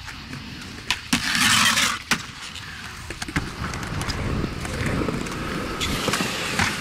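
Skateboard on concrete: sharp clacks of the board about a second in, a loud scrape lasting about a second, then the wheels rolling over the concrete with a low rumble, and more clacks near the end.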